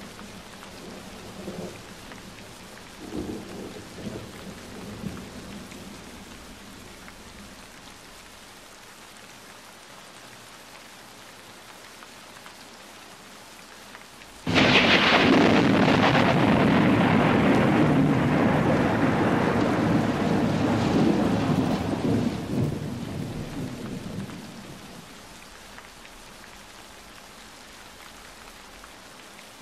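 Recorded rain falling steadily, with a few low rumbles in the first seconds. About halfway through, a sudden loud thunderclap breaks out and rumbles on for several seconds before dying away under the rain.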